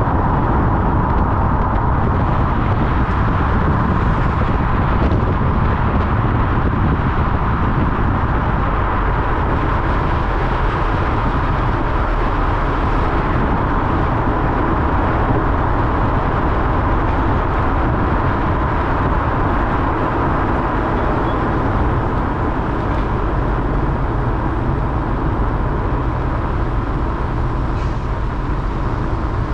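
Honda Civic Type R (FL5) being driven: steady engine and road noise with a continuous low rumble.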